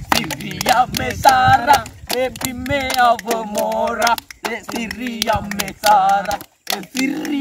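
A group of young men singing together without instruments, loose and raucous, with hand claps and knocks keeping a rough beat.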